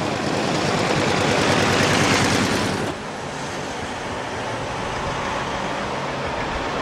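Street traffic with veteran cars. For about the first three seconds there is a loud, fast rattling clatter, which stops suddenly. After that comes quieter, steady traffic noise with a low engine hum.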